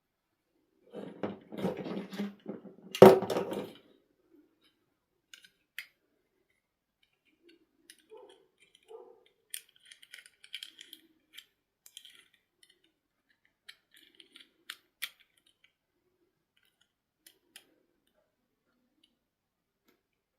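Small objects, most likely plastic toy parts or packaging, being handled: a stretch of rustling with a sharp click about three seconds in, then scattered light clicks and taps.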